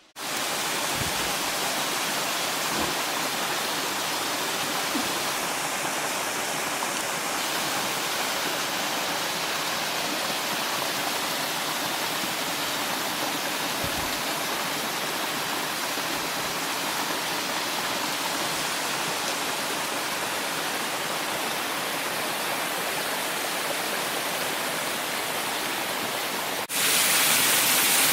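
Waterfall: steady rushing of falling water, which jumps suddenly louder about 27 seconds in.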